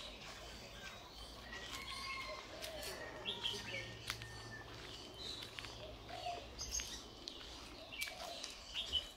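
Outdoor ambience of small birds chirping at scattered intervals over a steady low background hum.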